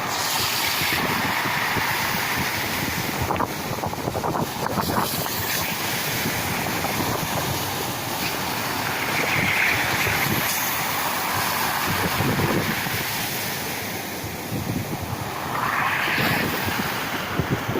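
Sea waves breaking on the shore and washing back, a continuous surf that swells and eases every few seconds.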